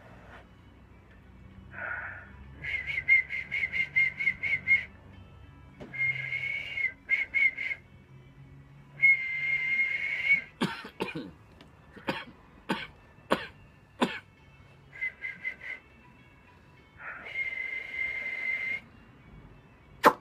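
A man whistling into a telephone handset on one high pitch, in short phrases that alternate between a quick trill and a held note. About halfway through, the whistling breaks for several sharp, forceful puffs of breath.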